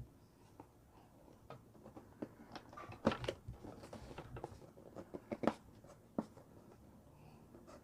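Plastic toy packaging and action-figure parts being handled: scattered light clicks and rustles, a little louder about three seconds in and again about halfway.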